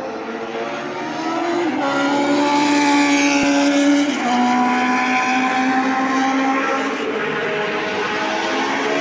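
Single-seater racing car engine running at high revs on the circuit. The engine note steps down at gear changes about two seconds and again about four seconds in, then climbs near the end.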